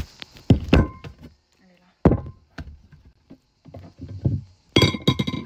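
Handling sounds on a table: a series of knocks and thunks as a plastic mayonnaise squeeze bottle and other things are picked up and set down, with a quick cluster of knocks near the end.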